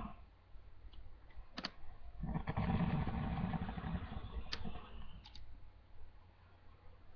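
Snoring: one long snore starting a couple of seconds in and lasting about two seconds, between quieter pauses, with a few short clicks.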